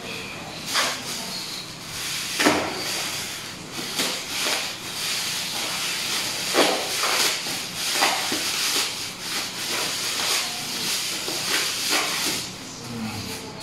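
Clear plastic bubble-wrap packaging crinkling and rustling as it is handled and pulled open by hand, with sharper crackles now and then.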